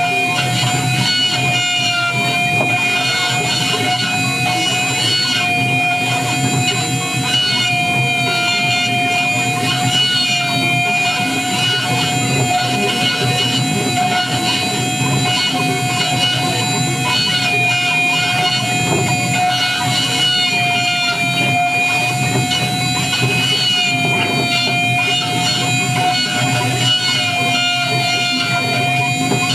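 High-frequency CNC spindle with a 3 mm engraving cutter running steadily while engraving metal: a constant high whine made of a few fixed tones, whose pitch dips briefly now and then as the cutter takes load, over a rough cutting noise.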